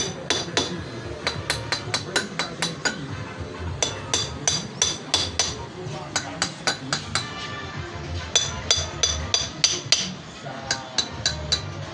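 Metal being struck over and over, sharp ringing clinks like a hammer tapping on metal, about two to three a second with short pauses.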